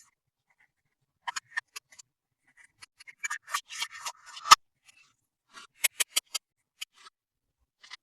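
Hands handling small toy pieces: scattered sharp clicks and taps, with a dense patch of scraping and rustling about three seconds in that ends in one loud click about halfway through, followed by a few more clicks.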